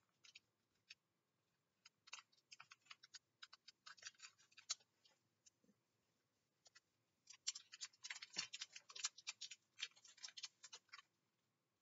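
Faint crinkling and crackling of a Pokémon booster pack's foil wrapper being torn open and handled, in two bursts of short crackles with a quiet spell of a few seconds between them.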